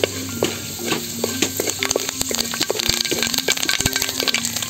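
Annatto seeds frying in hot oil in a metal wok, with a dense, irregular crackle of small pops. The oil is taking on the seeds' orange-red colour.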